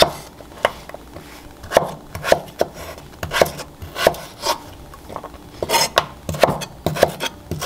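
Kitchen knife cutting a peeled raw potato into pieces on a wooden cutting board: a series of uneven knocks as the blade goes through and meets the board, with a brief scrape about six seconds in.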